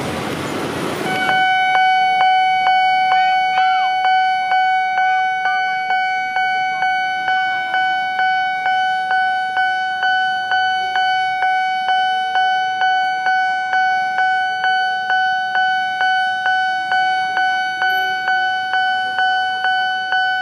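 Railroad level-crossing warning bell starting up about a second in and ringing steadily, about two strikes a second, a single bright tone with overtones. It signals that the crossing barrier is closing for a train movement.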